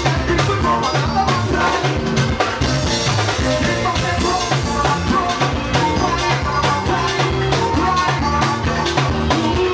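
Band music with a drum kit keeping a steady beat under sustained instrument lines.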